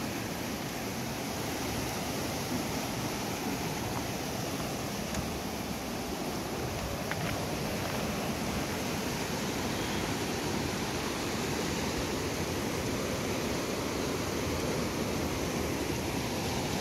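Steady rushing of a small rocky river, water pouring through rapids over boulders.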